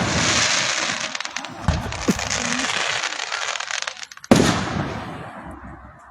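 Aerial fireworks exploding: a loud boom followed by a dense crackling shower for about four seconds, another boom in between, then a second big boom about four seconds in that fades away.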